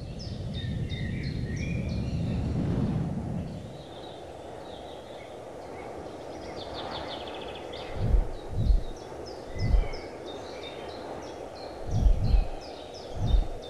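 Small birds chirping repeatedly. A low rumble swells and dies away about four seconds in, and in the second half six deep short thumps come in irregular pairs and singles.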